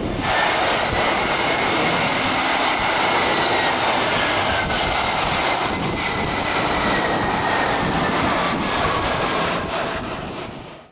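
Jet airliner's engines running loud, with a high engine whine slowly falling in pitch over a heavy rush of noise; the sound fades out near the end.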